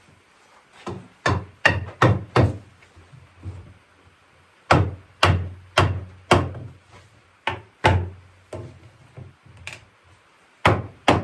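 Hammering on oak chair parts, knocking a rocker onto the legs of a small oak child's rocking chair that is going on stiffly: sharp knocks in groups of three to six, about two a second, with short pauses between groups.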